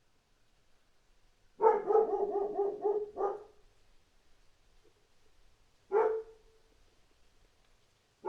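Dog barking: a quick burst of about seven barks in a row starting about a second and a half in, then a single bark a few seconds later and another at the very end.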